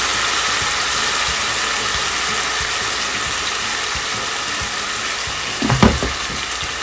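Chicken, shrimp and crab sizzling and bubbling in a hot wok as a steady hiss that slowly dies down, the burner having just been turned off. A brief knock comes near the end.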